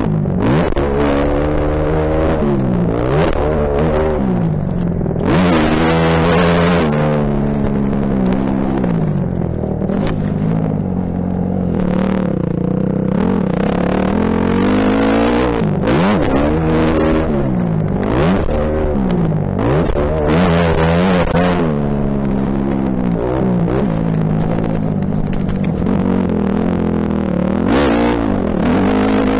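Motocross dirt bike engine, heard from a helmet camera, revving up and falling back again and again as the rider works the throttle and gears around the track, with several stretches of loud rushing noise.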